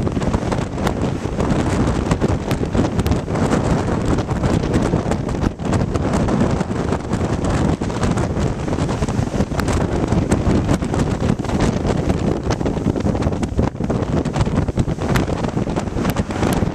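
Strong storm wind buffeting the microphone, a loud steady rush with frequent crackling gusts, over the sea surging in on a stormy incoming tide.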